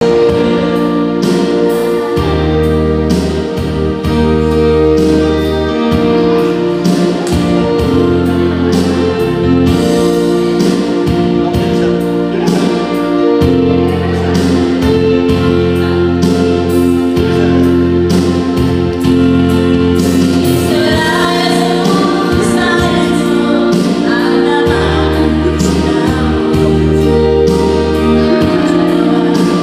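Yamaha PSR-series arranger keyboard playing sustained chords with bass and a steady drum beat. About twenty seconds in, two women start singing over it.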